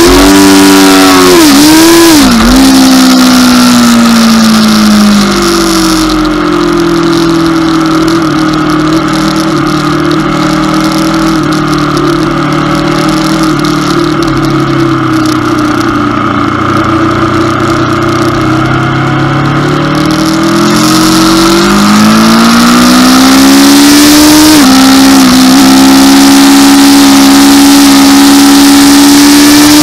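Aprilia RSV4's V4 engine heard from on board under track riding. The engine note drops in a few quick steps early on, falls and holds low through a long corner, then climbs under acceleration, dips sharply about 24 seconds in as it shifts up, and runs steady at high revs to the end. Wind rush rises and falls with speed.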